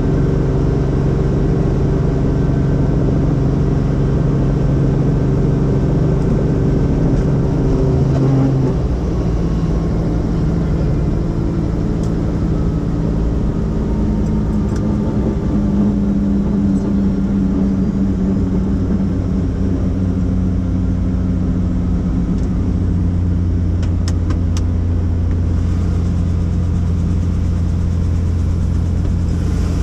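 Helicopter running with a steady, loud drone of even tones; about eight seconds in the pitch pattern shifts, and a low hum grows stronger later on.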